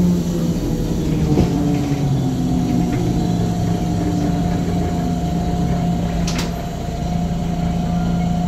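City bus heard from inside, slowing to a stop in traffic: its drive whine falls in pitch and settles into a steady hum and rumble while it stands, with one brief click about six seconds in.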